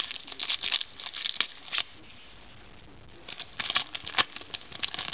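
Baseball trading cards being handled and flipped through by hand: quick papery rustles and slides in two bursts, with a brief pause between them.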